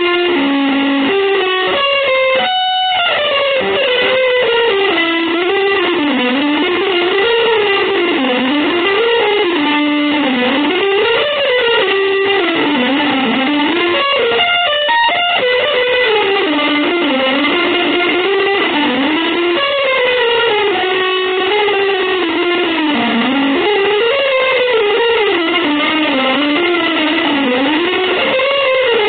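Instrumental music led by a guitar playing fast melodic lines that sweep up and down in pitch, with short breaks about two and a half seconds in and around the middle.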